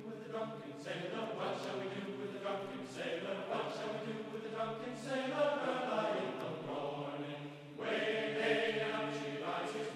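Background music with choir-like voices singing held notes, dipping briefly about eight seconds in.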